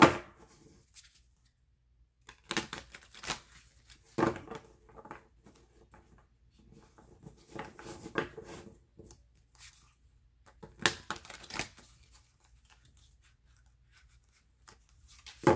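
Tarot cards being handled and shuffled, coming in several short bursts of papery rustling and flicking with quiet gaps between them.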